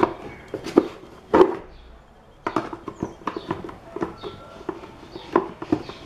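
Irregular clicks and light knocks of hands and metal tools handling a Philco blender's plastic motor base, with the shaft clamped in locking pliers while the left-hand-threaded coupling on top is worked loose. A quieter gap about two seconds in, then a busier run of clicks.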